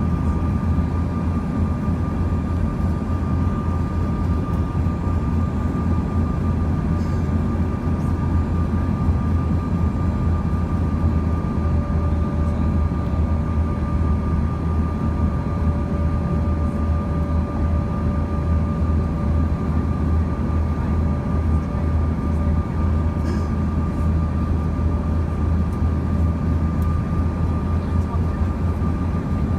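Steady cabin noise of a Bombardier CRJ-200 regional jet: a low rumble from its rear-mounted GE CF34 turbofans with a constant whine above it, holding level with no spool-up.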